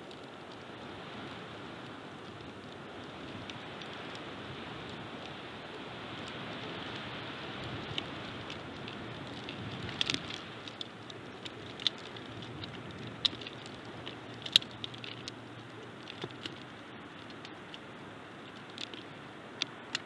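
Steady wind noise on the nest microphone with scattered sharp clicks and snaps, the bald eagle's beak picking at and shifting sticks and dry nest material. The clicks cluster from about halfway through.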